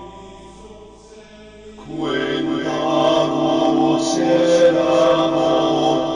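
Choral chanting music with held, droning voices. A fading chord gives way to a louder new sustained chord about two seconds in.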